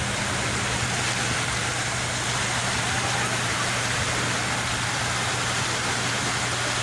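Steady rushing noise of sea waves, with no single wave breaking out above the rest, over a low steady hum.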